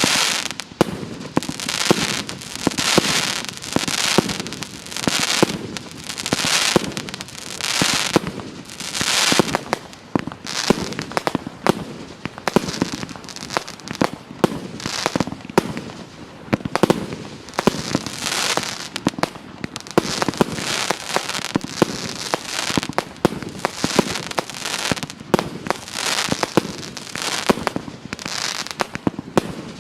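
A multi-shot firework cake (84-shot battery of 1.2-inch and 2-inch shells) firing in steady succession. Shells launch and burst about once a second, each followed by a hissing, crackling spread of effects.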